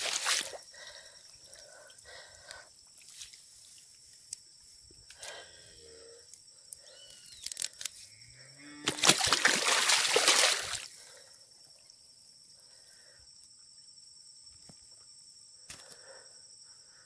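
Water sloshing and trickling as a hand pulls through grass in shallow floodwater. It is loudest in one noisy splash and rustle lasting about two seconds, just past the middle.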